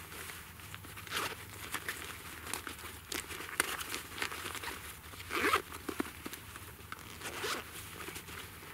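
A zipper and the rustle of a fabric hip pouch as hands dig through it for muzzleloader reloading supplies, with one louder stroke about five and a half seconds in.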